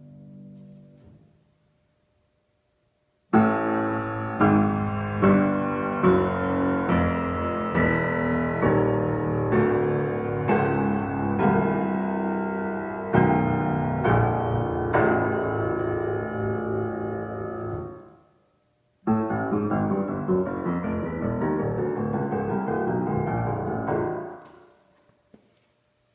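c.1982 Steinway Model L grand piano being played. A held sound dies away, and after a short silence comes a run of full chords, one struck about every second. After a brief pause a second, denser passage follows and fades out.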